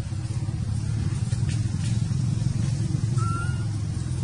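Steady low rumble, with a short faint high chirp about three seconds in.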